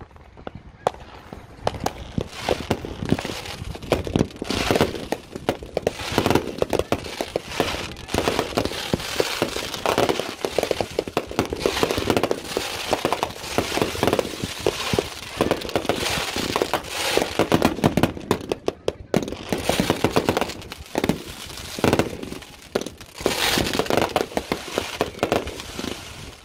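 Many consumer fireworks going off together: a dense, irregular run of bangs, pops and crackling from aerial bursts and spark fountains, with no pause.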